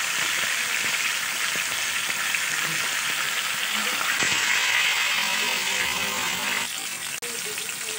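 Hot oil sizzling and crackling around a whole marinated chicken deep-frying in a steel pan. The sizzle drops a little about seven seconds in.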